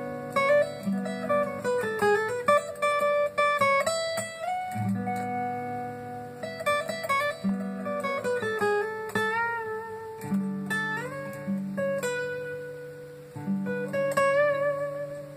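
Acoustic guitar playing an instrumental piece: a picked melody whose notes slide and waver in pitch, over held low bass notes.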